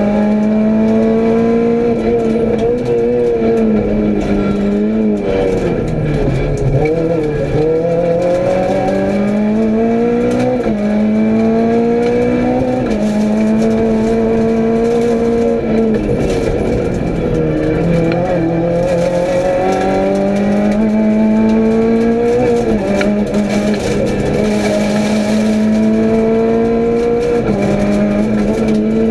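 Renault Clio rally car engine at full effort, heard from inside the cabin. Its note climbs again and again under acceleration, holds briefly, then drops back as the car shifts gear and slows for bends.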